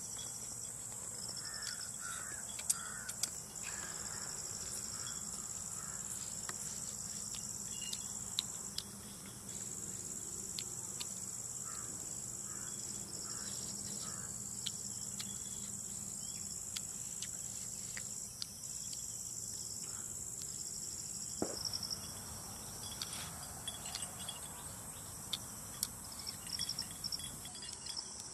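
Insects trilling steadily at a high pitch, the trill pulsing on and off, with crows cawing in a few short rounds near the start and around the middle, and scattered faint clicks.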